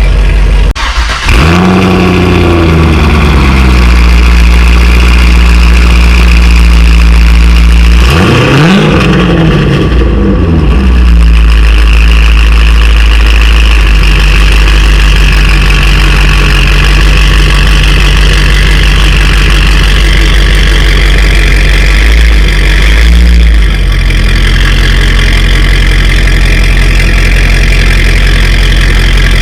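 Corvette LS2 V8 with long-tube headers and a full Corsa exhaust running loudly, mostly at a steady idle. It blips up and drops back down twice, once just after a brief dip about a second in and again around eight seconds in.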